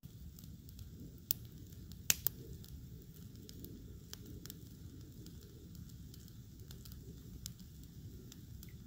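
Campfire of twigs and brush crackling, with scattered sharp pops over a steady low rumble. The loudest pop comes about a second in, and two more follow close together around two seconds in.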